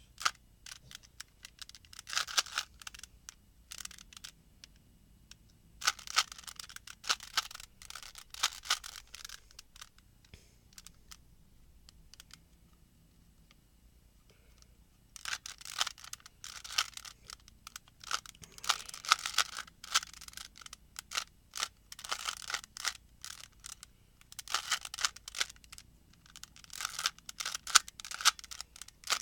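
A plastic 3x3 Rubik's cube being turned by hand, with rapid clacking of the layers in runs of a few seconds. The runs stop for short pauses, with a longer quiet stretch about ten seconds in.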